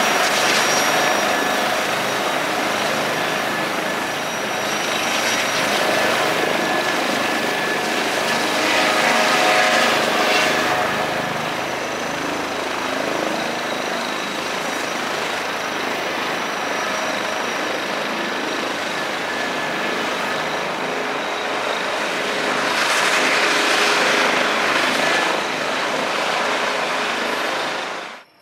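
Airbus H160 helicopter running on the ground with its rotors turning: its twin Safran Arrano turboshaft engines whine steadily under the rotor noise. The sound swells twice and fades out at the very end.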